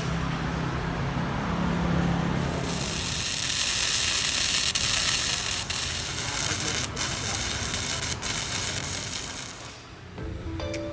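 Electric arc welding: a steady, loud crackling hiss that starts about two and a half seconds in after a low hum, with a few brief breaks, and stops about a second before the end.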